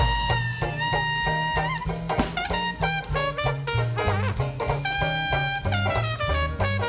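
Jazz band playing a swing tune, with a horn holding long notes over a walking bass line and a steady drum beat.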